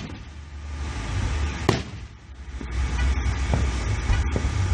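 Aerial fireworks bursting: one sharp bang a little under two seconds in, then fainter pops, over a steady low rumble.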